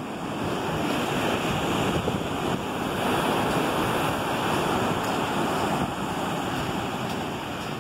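Ocean surf breaking and washing up a sand-and-rock beach, a continuous rush of waves that swells about a second in and eases a little near the end.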